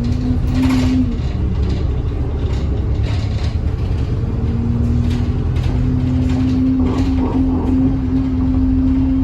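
Bus engine and drivetrain running on the move, heard from inside, with a clear whine over the low rumble. The whine drops in pitch near the start, fades about a second in, then comes back about four and a half seconds in and holds steady; light rattles come through now and then. This is the strange noise of a bus running sluggishly.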